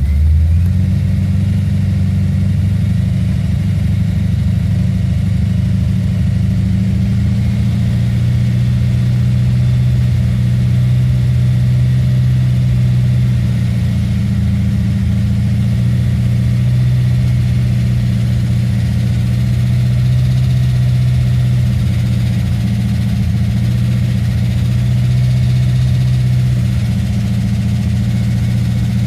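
A 7.0-litre LS7 V8 fitted with a Livernois stage 2C camshaft idling steadily, running with the valvetrain noise that the owner presents as lifter noise.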